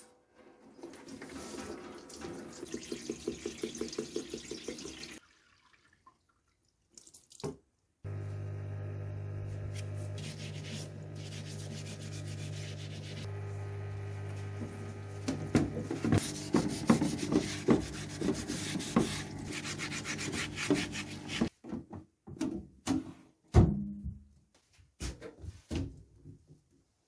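Rapid back-and-forth scrubbing on a rusty metal part. After a pause, a steady electric motor hum starts, with more scrubbing strokes over it. The hum stops suddenly, followed by scattered knocks and clatter of metal parts being handled.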